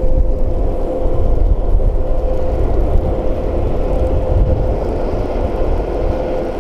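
Train passing at speed: a loud, steady low rumble with a constant hum running through it.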